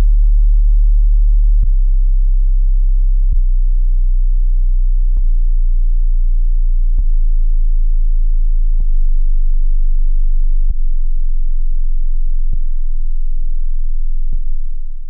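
Deep sub-bass sine test tone for a subwoofer, held steady, with a faint click about every two seconds.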